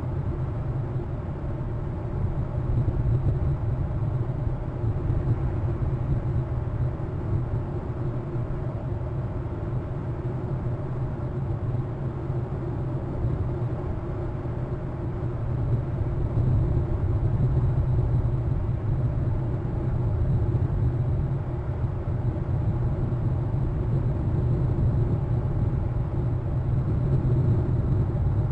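Steady low rumbling noise with a faint hiss above it, growing slightly louder about halfway through.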